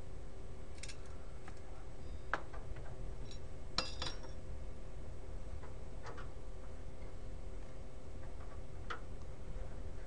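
Screwdrivers working screws out of a sheet-metal 4U server case, with a handful of scattered small metallic clicks and clinks over a steady low hum.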